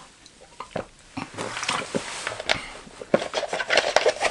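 A man gulping a drink straight from a plastic bottle: a string of swallows and small wet clicks that begins after a brief quiet and grows busier about a second in.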